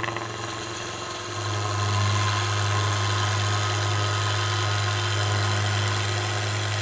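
Coronet Herald woodturning lathe running with a steady hum while a spindle roughing gouge, riding on its bevel, shaves along a spinning sycamore spindle. It is a smoothing cut that takes the high points off to leave the work parallel. The cutting noise grows louder about a second and a half in and then holds steady.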